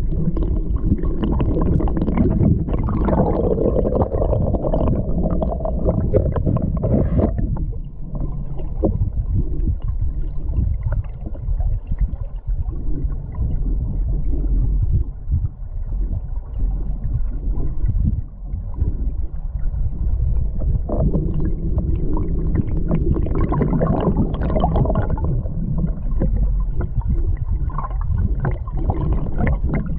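River current heard from underwater: a muffled low rushing and gurgling of water over rocks. It eases off about seven seconds in and swells again after about twenty seconds.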